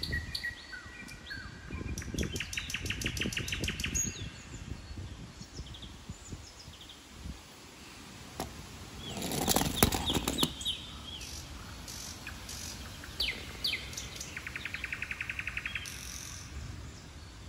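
Garden birds chirping, with a rapid trill about two seconds in and another near the end. About nine seconds in, a short, loud burst of noise as a Hot Wheels toy monster truck rolls down a plastic track.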